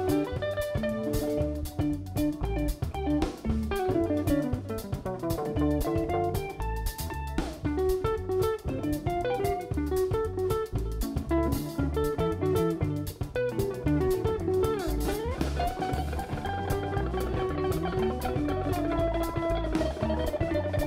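Small live band playing: hollow-body electric archtop guitars pick melodic lines over a drum kit with cymbals, one guitar note sliding upward about fifteen seconds in.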